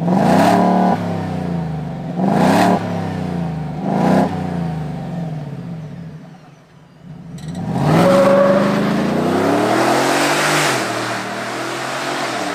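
Roush-supercharged 5.0-litre V8 in a Ford F-150 revved three times through its performance exhaust, about two seconds apart, the pitch falling away after each blip. After a short lull the truck pulls away, the engine rising in pitch under acceleration for a few seconds before easing off.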